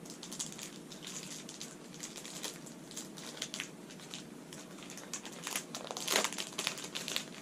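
Plastic packaging crinkling and crackling as it is handled and pulled open, with a louder burst of crackles about six seconds in.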